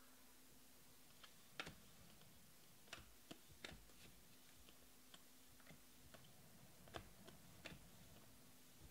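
Faint, irregular clicks of glossy Panini Prizm baseball cards being thumbed off a stack one at a time, a dozen or so sharp little snaps.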